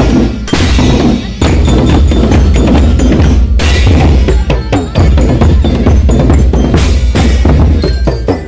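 School marching drum band playing loudly: bass drums, marching drums and hand cymbals beating together in a dense rhythm.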